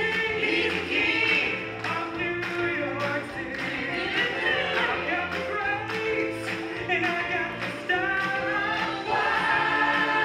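Musical-theatre song: the cast sings together over an accompaniment with a steady beat.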